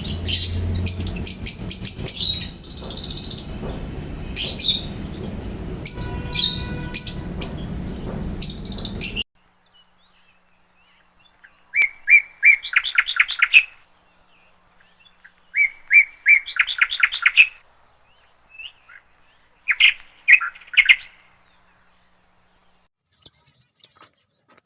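Small parrots chirping and chattering busily over a low hum. About nine seconds in the sound cuts to a quiet background, where a bird gives three short bouts of rapid, repeated chirps.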